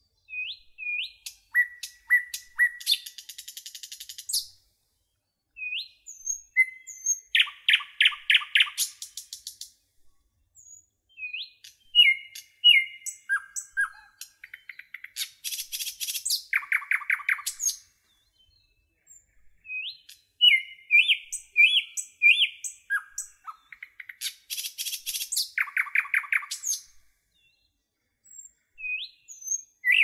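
Songbirds singing: short whistled notes and quick up-and-down sweeps, with several fast rattling trills, in phrases broken by brief silences.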